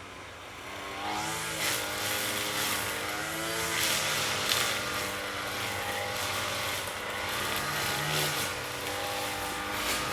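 Lawn mower engine running, its pitch rising and falling repeatedly, and growing louder about a second in.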